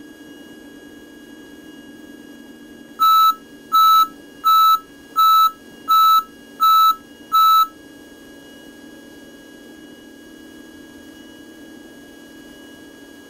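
Seven loud electronic beeps, about one and a half a second, from a cockpit alert, over the steady drone of a Cessna 150's engine at full power on the takeoff roll.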